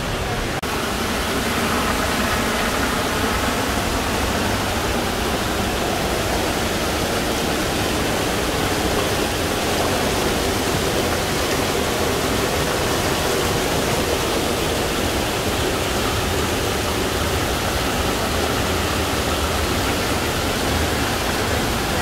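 Steady rush of falling water from the Misol-Ha waterfall, an even hiss that holds without change.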